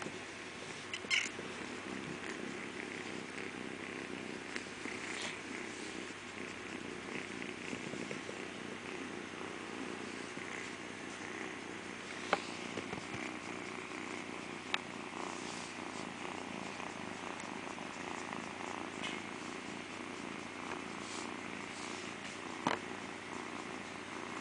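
Tabby kitten purring steadily as it is stroked by hand, with a few brief clicks now and then.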